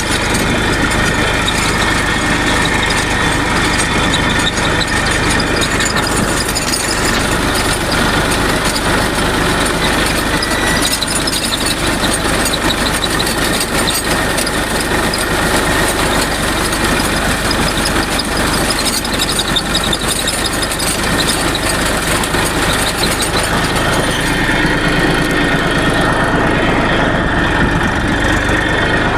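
Tractor engine running steadily, with the noise that is said to come from the drivetrain's cross joint (universal-joint cross) mixed in.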